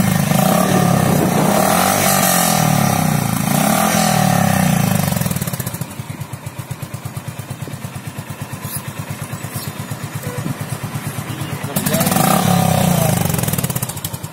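Honda H'ness CB350's 348 cc air-cooled single-cylinder engine, heard through its long chrome muffler. It is revved several times over the first five seconds, settles to an even, thumping idle, and is revved once more near the end before dropping back.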